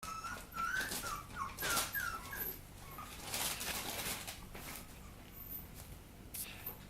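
Papillon puppy whimpering in a rapid run of short, high squeaks during the first couple of seconds, then only now and then, with brief rustle-like noises in between.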